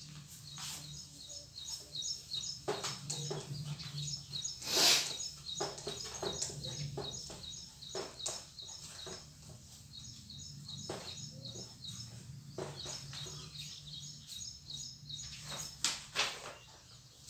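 Whiteboard being wiped clean with a duster: a string of short rubbing strokes, the loudest about five seconds in. Small birds chirp steadily in the background.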